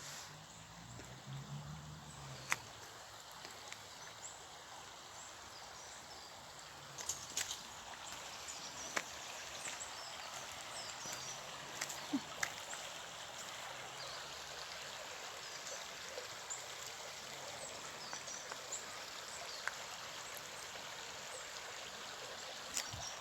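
A stream running steadily with a soft rushing sound, with a few scattered sharp clicks over it.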